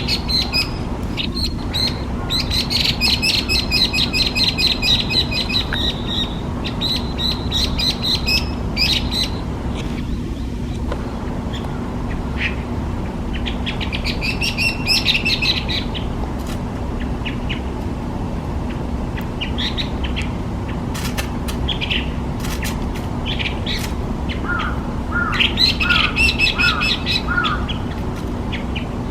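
Hwamei (Garrulax canorus) singing: loud phrases of rapidly repeated high notes, in several bouts with short pauses between them, over a steady low hum.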